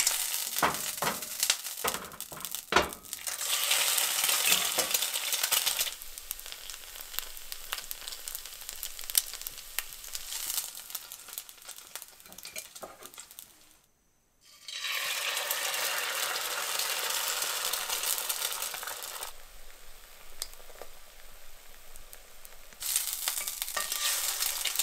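Eggs sizzling in hot lard in a cast-iron skillet, with a metal spatula scraping and clicking against the pan in the first few seconds. The sizzle cuts out briefly about halfway through, then carries on steadily.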